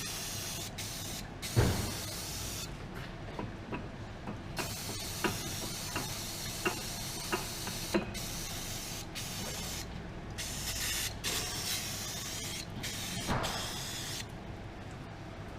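Aerosol brake cleaner sprayed in repeated hissing bursts with short pauses between them, washing oil off the gearbox casing. Several sharp knocks come in among the spraying, the loudest about a second and a half in.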